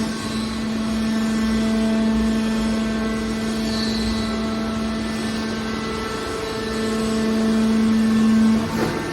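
Hydraulic power unit of a scrap car baler running with a steady droning hum, swelling louder twice as the press works.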